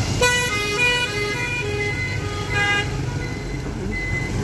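A short electronic tune of beeping notes at changing pitches, lasting about two and a half seconds, followed by a few single high beeps. Underneath is the steady low rumble of motorbike and street traffic.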